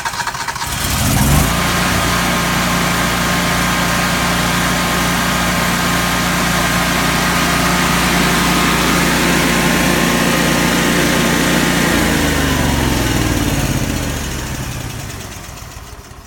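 Kohler 17 kW propane standby generator starting up about a second in and settling into a steady run, with a new speed sensor fitted. About twelve seconds in its engine is shut off, and it winds down, falling in pitch and fading to a stop.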